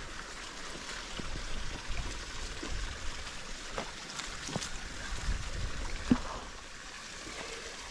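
Outdoor ambience at the water's edge: a low wind rumble on the microphone and a faint trickling, with scattered small clicks and knocks. The sharpest knock comes about six seconds in.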